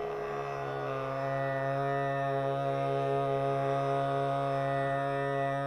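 A man's voice holds one long, steady sung note, Sa in the first-black (C#) scale, over a tanpura drone, in a light-vocal voice-finding exercise.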